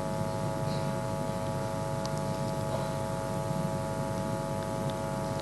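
Steady electrical hum, several steady tones held together at an even level.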